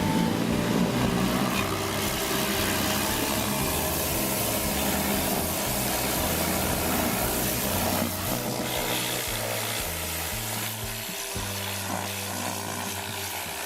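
Greenworks 1600 PSI electric pressure washer with a turbo nozzle, its water jet hissing steadily as it blasts grease off a lawnmower engine. The spray gets a little quieter after about eight seconds. Background music plays underneath.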